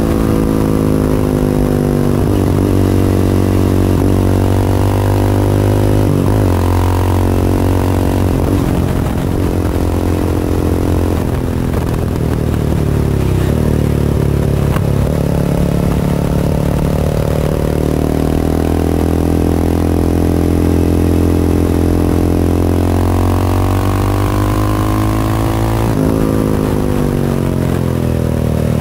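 Ducati 450 single-cylinder engine heard onboard at racing speed. The revs climb and then drop sharply several times as it is shifted through the gears.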